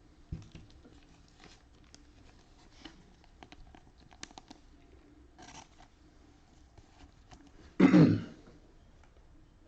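Faint small clicks and rustles from handling trading cards, then a single loud cough about eight seconds in.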